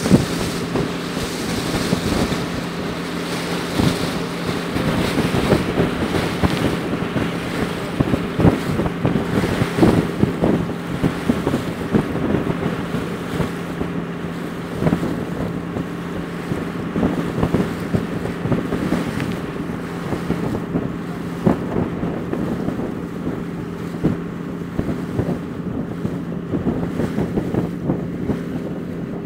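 A boat's engine running steadily as a low, even drone while under way, with wind buffeting the microphone in gusts over it.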